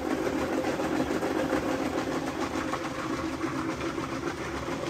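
Paddy-field dewatering pump running steadily: a continuous motor hum with water churning out of its outlet box into the canal.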